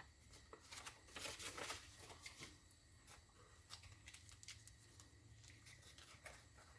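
Faint rustling and crinkling of packaging being handled as a part is taken out of its box, thickest in the first couple of seconds, then a few scattered light clicks.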